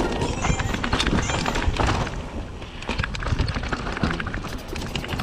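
Mountain bike clattering and rattling as it rolls down a rocky dirt trail, with many quick knocks from the wheels and frame over the rocks above a steady low rumble.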